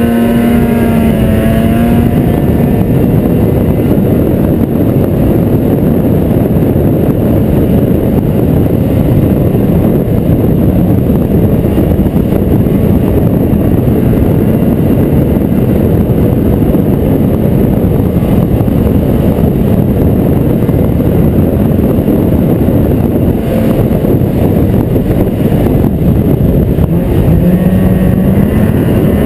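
Snowmobile engine running under way, loud and steady over a dense noisy rumble. Its pitch drops in the first couple of seconds and climbs again near the end.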